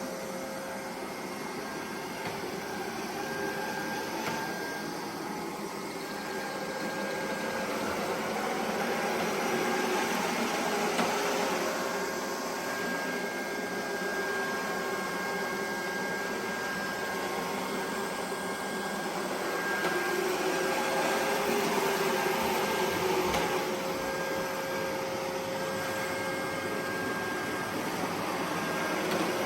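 Neato Botvac D Series robot vacuum running: a steady whir from its suction motor and brush, with a thin whine over it, getting a little louder twice as it moves about.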